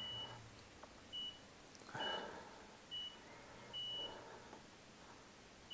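Washing machine control panel beeping as its settings are changed: five short, high electronic beeps about a second apart, the last one held a little longer.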